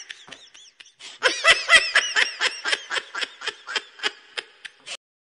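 High-pitched laughter: a short burst, a brief pause, then a long run of rapid giggling pulses, about four or five a second, that fades and cuts off near the end.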